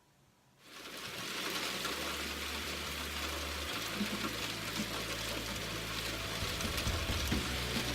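Heavy rain pouring down steadily, coming in about a second in, with a low hum beneath it.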